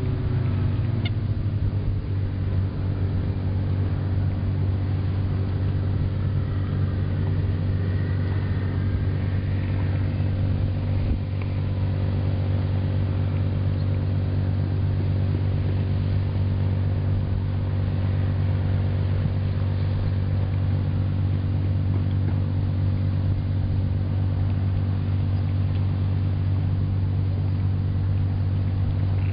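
Boat engine running at a steady speed: a constant low drone with a few steady hum tones above it.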